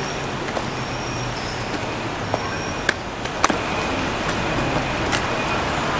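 Steady outdoor background hum of distant traffic, with a few sharp clicks and some faint short high chirps.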